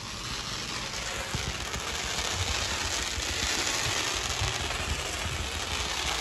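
Fireworks going off in the distance: a dense, steady crackling hiss that builds over the first couple of seconds, with faint irregular low thuds underneath.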